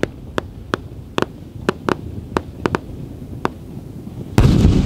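Wide starmine aerial fireworks: a run of separate sharp bangs at an irregular pace, roughly two a second, then about four and a half seconds in a sudden, much louder boom that carries on as a heavy rumble.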